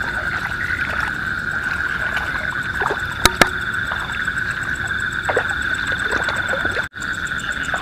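Chorus of frogs calling steadily from a flooded rice paddy at night, a continuous pulsing trill, with two sharp clicks a little over three seconds in.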